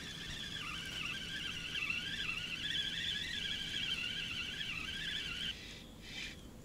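Spinning reel on a feeder rod being cranked to wind in a fish, its gears giving a wavering high whine that stops sharply about five and a half seconds in.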